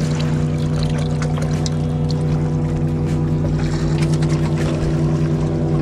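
An engine running steadily at one even pitch, with faint small clicks over it.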